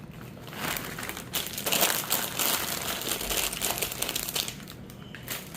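Crinkling and crumpling of packaging being handled up close, a dense rustling crackle that starts about half a second in and stops just before the end.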